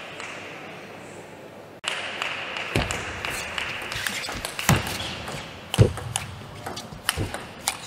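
Table tennis rally: the ball clicking off the players' bats and bouncing on the table, sharp ticks about a second apart that begin a couple of seconds in, over a steady hall background.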